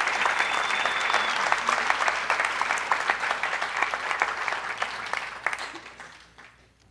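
Audience applauding, the clapping thinning out and fading away in the last couple of seconds.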